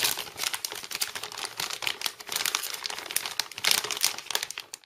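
Plastic anti-static bag crinkling and crackling as a graphics card is slid out of it, then cutting off suddenly near the end.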